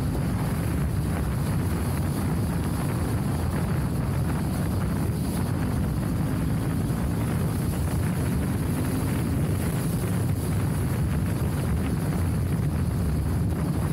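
Steady rumble of a vehicle travelling along a gravel road, with tyre and wind noise, holding an even level throughout.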